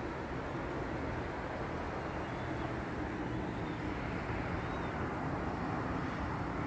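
Steady hum and hiss of distant road traffic, even and unbroken.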